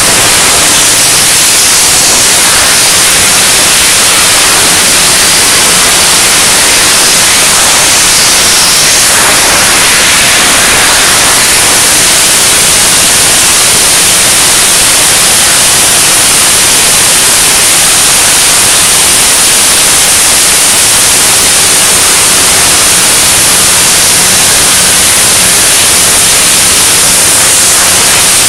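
Steady loud hiss of several cutting torches on a gantry cutting machine burning through wet steel plate.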